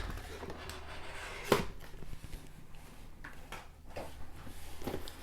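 A box and its packaging being handled and moved, with one sharp knock about a second and a half in and a few lighter taps and clicks later.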